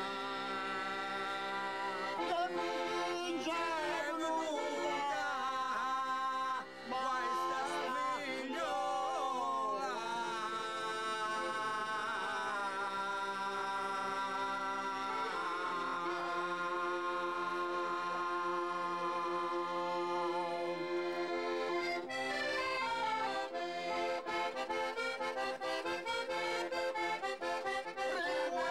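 Accordion playing a traditional folk tune, a melody over held chords, with quicker repeated notes near the end.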